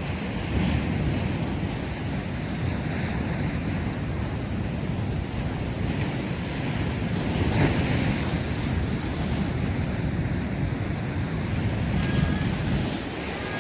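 Sea waves washing onto the shore, swelling and falling back about three times, with wind buffeting the microphone.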